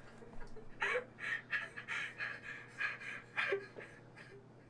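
A person breathing in short, ragged, panting gasps, several a second and fairly faint, over a low steady hum.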